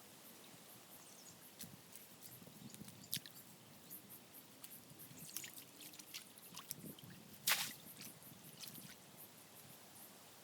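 Water dripping and splashing around a cast net being worked in shallow water: scattered small drips and splats, with one louder splash about seven and a half seconds in.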